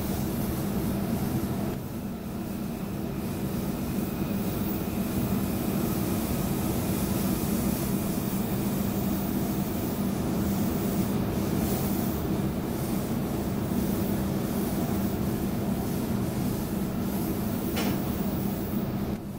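Running noise heard inside an electric passenger train travelling along the line: a steady low hum and rumble of the train's running gear on the rails.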